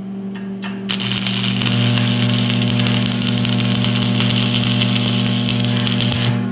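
Stick (SMAW) welding arc on steel plate from a Lincoln stick welder: the arc is struck about a second in and burns with a steady crackling sizzle for about five seconds, then stops abruptly when the rod is pulled away. It is a short re-weld filling a gap missed in the bead, over a steady low hum.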